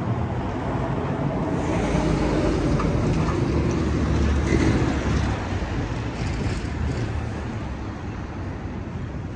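A road vehicle passing close by: a low rumble that builds to a peak about halfway through and then fades away.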